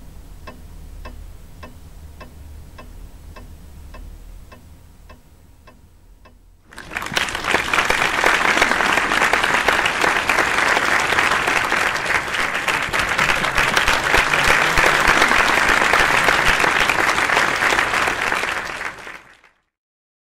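A clock ticking about twice a second over a low hum, then, about seven seconds in, loud audience applause that runs for some twelve seconds and cuts off suddenly near the end.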